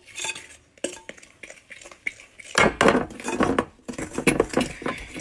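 Metal fork stirring thick salt dough of flour, salt and water in a glass mixing bowl, with a rapid run of clinks and scrapes against the glass that gets busier and louder about halfway through.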